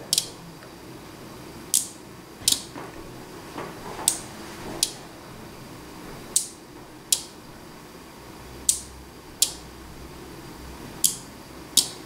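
Trap-release receivers of a remote clay-trap control system clicking in sharp pairs, one click on and one off about three-quarters of a second apart, each pair marking a trap being fired in the flush. A pair comes roughly every two and a half seconds, paced by the 2-second speed setting.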